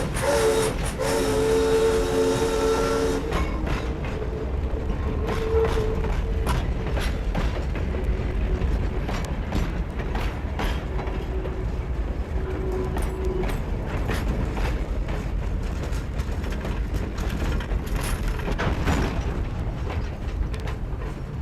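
A train's chime whistle blows, breaking off briefly and ending about three seconds in. The train then runs on with a steady low rumble and irregular clanks and clicks from the cars and wheels.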